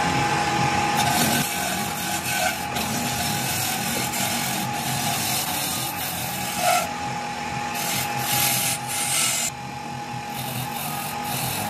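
Wood being rubbed and sanded by hand in repeated scraping strokes, each stretch lasting about a second, over a steady machine hum.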